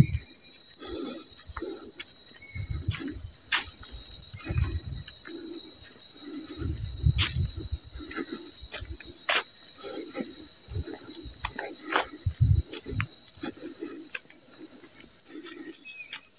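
Insects droning in one steady high-pitched tone, with footsteps on a dirt footpath in a regular walking rhythm and a few sharp clicks.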